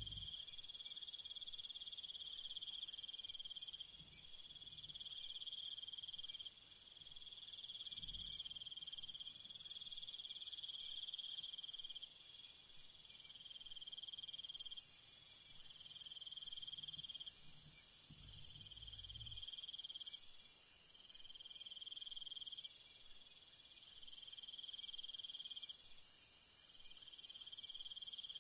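Night chorus of crickets and other insects trilling. A very high, shrill band of sound switches on and off every few seconds over a lower trill that comes and goes in spells of one to two seconds.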